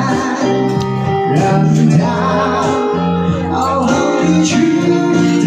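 A song playing, with a singing voice over guitar accompaniment.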